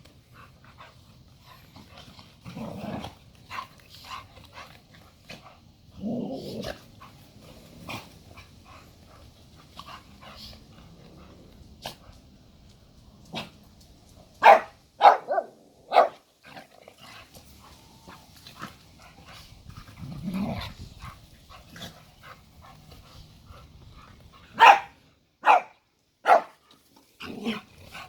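Dogs play-fighting: low growls every so often, and sharp barks in two quick runs of three, one midway and one near the end.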